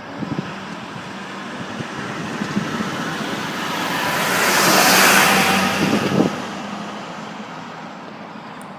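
A car driving past on the road: tyre and engine noise building steadily, loudest about five seconds in, then fading away.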